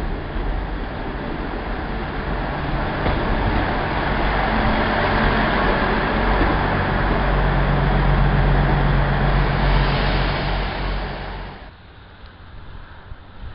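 South West Trains diesel multiple unit running past at close range along a station platform, its diesel engine note and wheel-on-rail rumble growing louder as it passes and loudest about eight to eleven seconds in. The sound cuts off suddenly near the end, leaving a much quieter outdoor background.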